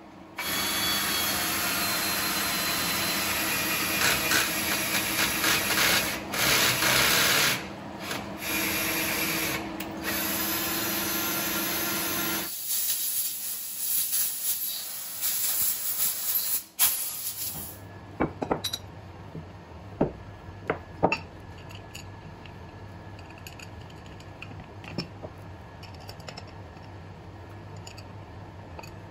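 Compressed-air blow gun hissing in long blasts as it clears chips from a part in a CNC mill's vise, stopping abruptly about 18 seconds in. After that, a few light clicks of screws and a hex key being handled on a tabletop, over a low hum.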